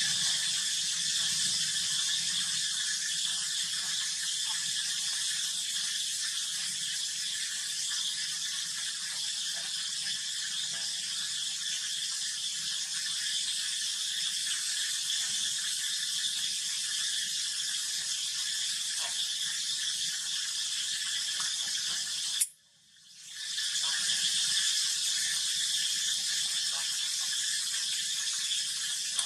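Steady outdoor insect chorus, a dense high buzz with no pauses. It cuts out briefly about two-thirds of the way through, then fades back in.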